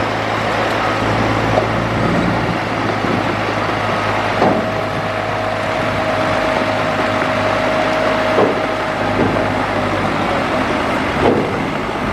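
Diesel engine of heavy earthmoving machinery running steadily, with a steady whine held for several seconds in the middle and a few short knocks or clanks.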